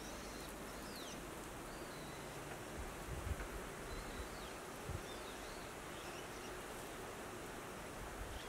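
Quiet countryside ambience: small birds chirping briefly now and then over a faint steady drone, with a couple of soft low bumps.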